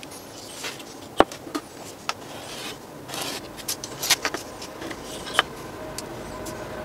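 Paper being handled and slid on a plastic cutting mat, rustling, with a few sharp taps and clicks as a steel ruler is set down on it.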